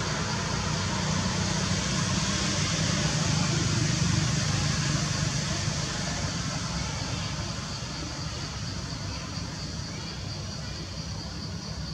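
Steady outdoor background: a low rumble with an even high-pitched drone above it, easing a little in the second half.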